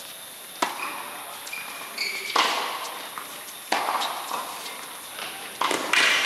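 A tennis serve and rally on a hard court in a large indoor hall: the serve is struck about half a second in, then four more sharp racket-on-ball hits follow about every one and a half seconds, each echoing in the hall. A few short shoe squeaks come between the first shots.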